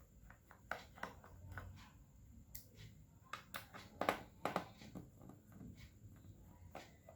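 Scattered small clicks and light taps from handling and opening an HP EliteBook Folio 1040 G1 laptop's case during disassembly, with the loudest run of clicks about four seconds in.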